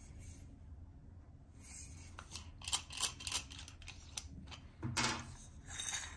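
Metal-on-metal clicking and scraping as a spiral-cut monocore slides inside a solvent-trap tube, with a loud sharp clack about five seconds in.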